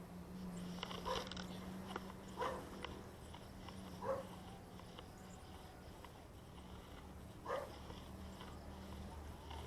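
Four short animal calls, a second or more apart, over a steady low hum.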